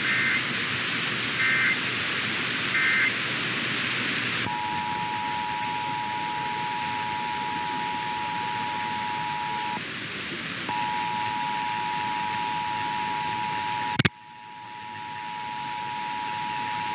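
Three short EAS digital data bursts, the end-of-message code that closes an alert, over steady radio static. A few seconds later the EAS two-tone attention signal starts and holds steady, dropping out for about a second midway. A sharp click comes near the end, after which the static falls away while the tone carries on.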